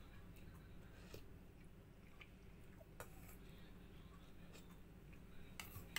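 Near silence: a low room hum with a few faint, short clicks of a metal spoon on tableware, about a second in, about three seconds in, and near the end.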